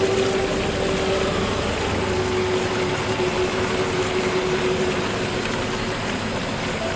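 Nature ambience of steady rushing noise, with a single held low note from a background music pad that fades out about six seconds in.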